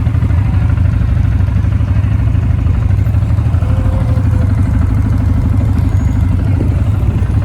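ATV engine running steadily while riding, a loud, even low drone.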